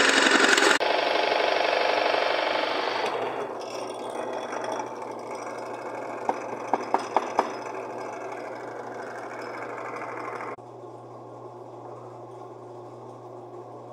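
Benchtop drill press with a Forstner bit boring into a wooden block: loud motor and cutting noise for the first few seconds, then the motor running on more quietly, with five quick sharp clicks about six to seven seconds in. After an abrupt drop near the end, only a low steady hum remains.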